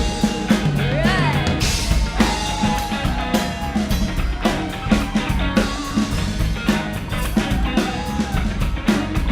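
Rock band playing an instrumental break: a drum kit keeps a steady beat under bass and guitar, with a lead line that bends up and down in pitch.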